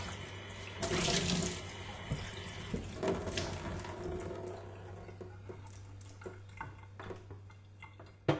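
Tap water running over an object being scrubbed in a sink, with a louder splash about a second in. The flow tapers away into scattered drips and small knocks, with one sharp knock near the end.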